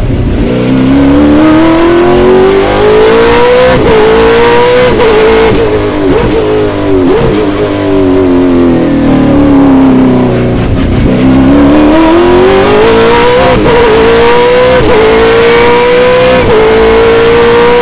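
700 hp Trans Am race car's V8 engine at full throttle, revving up through the gears with a sudden drop in pitch at each upshift. About five seconds in, the revs fall away for several seconds, broken by brief upward blips. It then accelerates hard again through three more upshifts.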